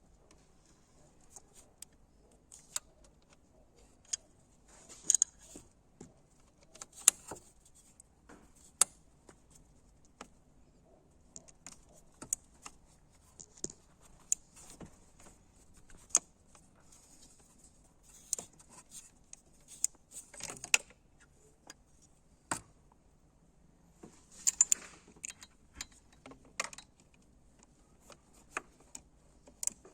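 Small metal objects clinking and jingling, in irregular sharp clicks with a brief metallic ring; a few louder clusters of clatter come about a fifth of the way in, again a little past two-thirds and near the end.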